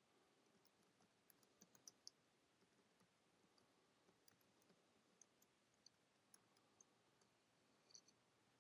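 Near silence, with faint scattered clicks of computer keyboard keys being typed.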